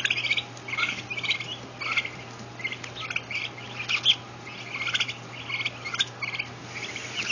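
A flock of two-week-old turkey poults peeping: many short, high calls, several a second and overlapping, over a faint steady low hum.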